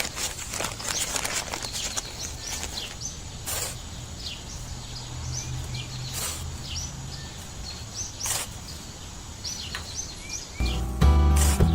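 Small birds chirping in many short, quick calls over steady outdoor background noise and a low hum, with a few sharp knocks in between. Music starts near the end.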